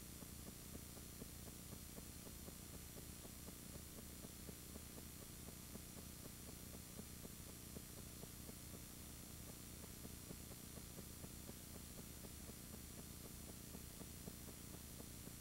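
Near silence: a faint, steady hiss and hum with light scattered crackle, the noise floor of a silent home-movie transfer. No surf or voices are heard.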